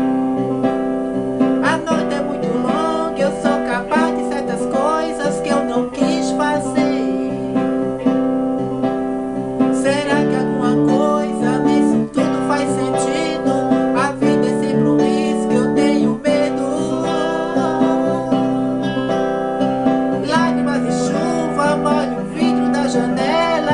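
Pop song music led by guitar, with sustained chords and a melodic line over them.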